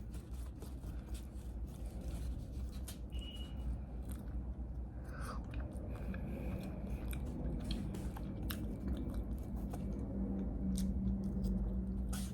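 A person chewing and biting into food close to the microphone: scattered small clicks and crunches over a low steady hum.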